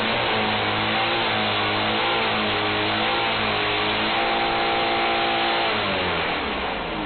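A car engine running at high, steady revs, its pitch wavering slightly, then falling away about six seconds in as the revs drop.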